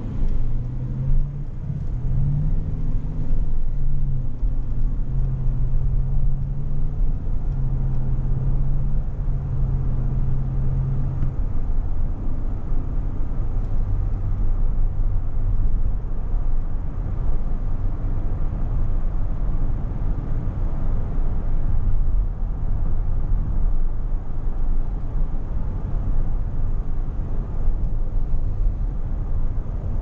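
Cabin noise inside a 2021 Cadillac Escalade ESV picking up speed to about 42 mph: steady low road and engine rumble, with an engine hum that shifts pitch in small steps over the first ten seconds or so, then a plain cruising drone.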